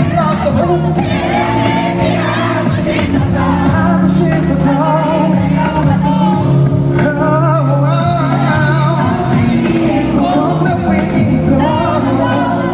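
Live pop concert music: a loud backing track with singing over it, running continuously.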